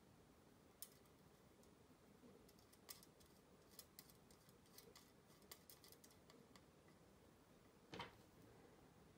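Faint, scattered clicks and ticks of small bolts and thin aluminium weather-vane parts being handled and fitted together by hand, with one louder knock near the end.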